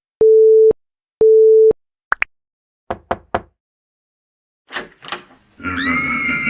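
Telephone line tone sounding in evenly spaced half-second beeps at one steady pitch, followed by a few short chirps and clicks and two brief whooshes. Music with long, slowly gliding high tones starts about five and a half seconds in.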